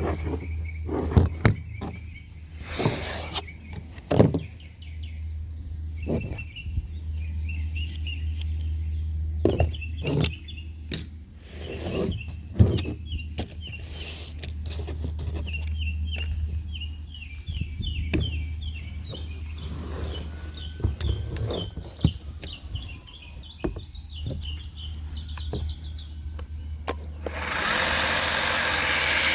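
Scattered clicks and knocks from hands working on the sweeper's parts, over a steady low hum, with a small bird chirping repeatedly in the background. About two seconds from the end, a dense rushing noise starts and runs to the end.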